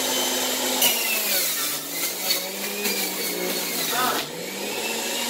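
Electric juicer motor running, its pitch dropping under load about a second in as celery stalks are pushed down the feed chute and ground up with a crunching noise. The motor picks back up to speed near the end.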